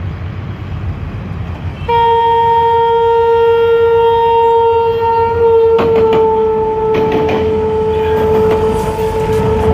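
Diesel locomotive air horn sounding one long, steady blast starting about 2 s in, over the rumble of a train on the track; the blast dips slightly in pitch about halfway, and a few sharp wheel-on-rail knocks come after the dip.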